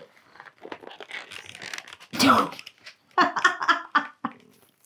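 Stiff clear plastic blister packaging crinkling and clicking as it is prised and worked open by hand, with short bursts of vocal sound about two and three seconds in.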